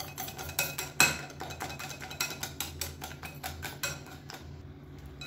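Wire whisk beating a thick batter in a glass mixing bowl: quick, irregular clicks and taps of the metal against the glass, easing off near the end.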